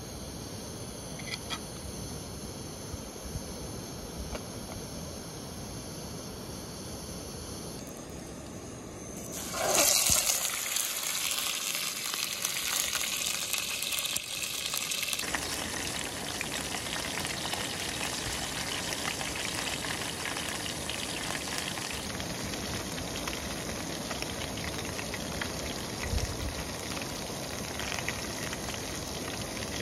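Whole fish frying in a pan on a canister backpacking stove. A steady hiss runs for the first third. A sudden loud sizzle comes about a third of the way in, as the fish meets the hot pan, then it settles into steady sizzling.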